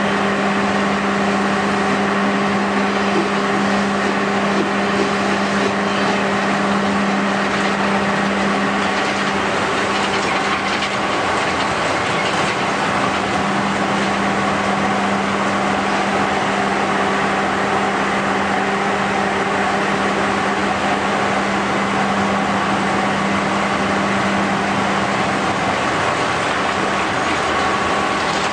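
Steady industrial drone of sugar mill machinery: a constant low hum with fainter steady tones above it over a wash of noise, with no rhythm or pauses.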